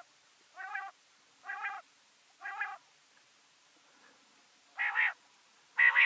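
Common quail calling: four soft, nasal, mewing notes about a second apart, then two louder, sharper call phrases near the end.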